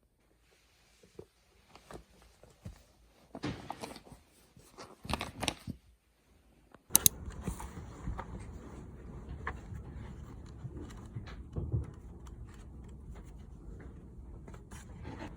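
Scattered small clicks and rustling of things being handled, with two louder rustling spells. A sharp click about seven seconds in, then a steady low background with faint clicks.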